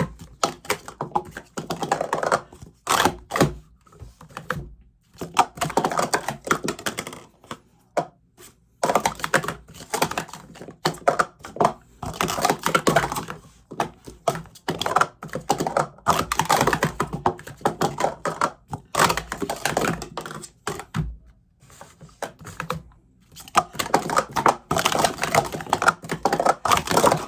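Plastic sport-stacking cups, new Speed Stacks Pro Series, rapidly stacked up and down on a table: runs of fast clattering clacks with short pauses between runs.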